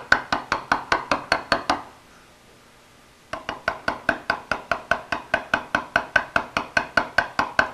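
A hammer tapping a hand chisel that is cutting a V-groove into very hard slate: quick, light, even taps at about five or six a second. The taps stop for about a second and a half near two seconds in, then resume.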